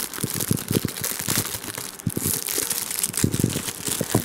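Packaging crinkling and tearing as a prize piggy bank is unwrapped by hand, with irregular crackles and short handling knocks throughout.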